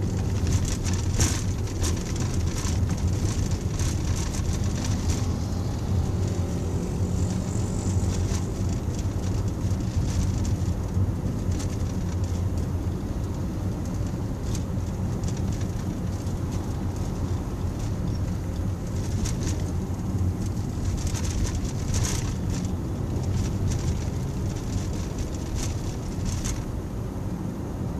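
Steady low road and engine rumble heard inside a moving car's cabin, with short crackles now and then.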